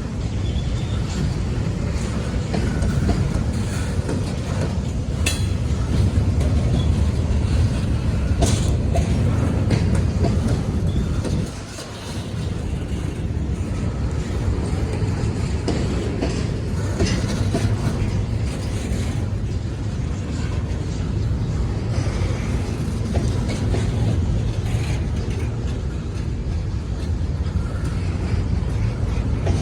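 Freight train rolling past, a steady heavy rumble of wheels on rail with scattered sharp clicks as the wheels cross rail joints.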